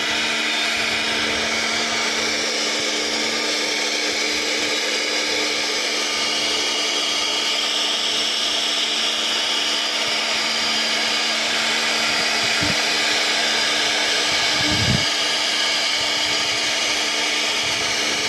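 CNC router running steadily: a constant spindle hum with a hiss of cutting over it. Two short knocks come about two-thirds of the way in.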